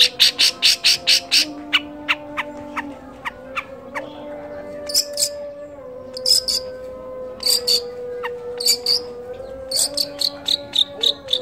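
Long-tailed shrike (cendet) singing a mimicking song: runs of sharp, high repeated chirps at about five a second, broken by short pauses and a few single notes, over a faint steady low tone.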